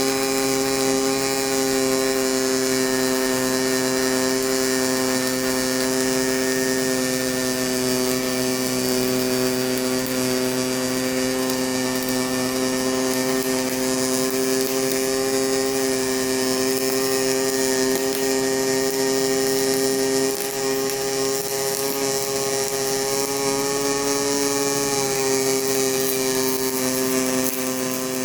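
Pulse MIG welding arc from an HTP Pro Pulse welder burning a continuous bead, a steady droning buzz at the pulse rate. The pitch shifts briefly near the end.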